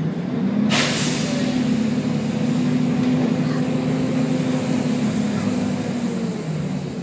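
A sudden loud hiss of compressed air from the Volvo B10BLE bus's air system, starting under a second in and slowly fading, over the steady running of the bus's engine.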